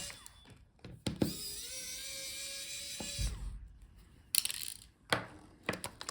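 Small electric screwdriver spinning, a steady whine for about two seconds that starts a second in, backing out a laptop screw. Several light clicks and knocks follow.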